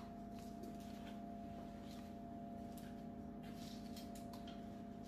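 A quiet steady hum with a few faint clicks.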